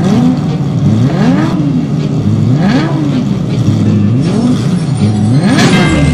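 Edited soundtrack of engine revving: a rev rises and falls back about every one and a half seconds over a steady low drone, repeating evenly like a loop.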